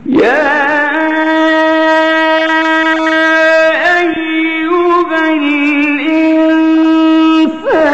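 Male Quran reciter's voice chanting in the melodic qirat style, holding one long ornamented note with small turns in pitch. It breaks off near the end, and a new gliding phrase begins.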